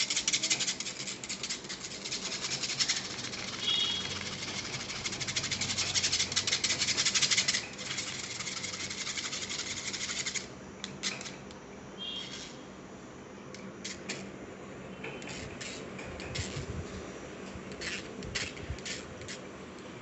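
Metal spoon scraping ground aloe vera pulp against a stainless-steel mesh strainer, a fast raspy scraping that stops suddenly about halfway through. After that come scattered light taps and clinks of the spoon and strainer.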